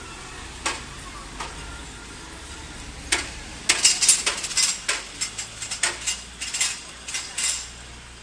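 An irregular run of sharp clicks and clinks, loudest and most crowded about four seconds in, over a faint low hum.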